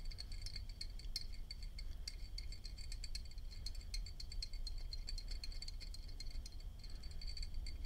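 Faint, irregular scratching and ticking of a cotton swab damp with alcohol scrubbing soot out of the metal chimney of a vintage Storm King petrol lighter insert, over a low steady hum.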